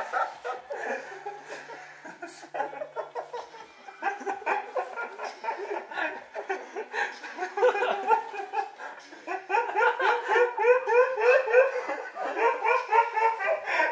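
People laughing, quietly at first, then in a long run of rapid, hearty laughter from about eight seconds in.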